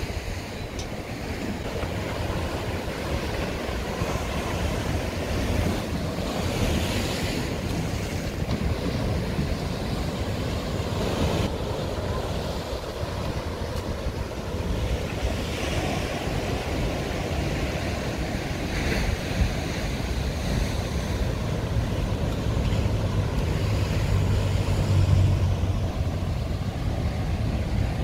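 Ocean surf breaking on rock shelves and the shore, a continuous wash that swells and eases, with wind buffeting the microphone. A low hum comes in over the last few seconds.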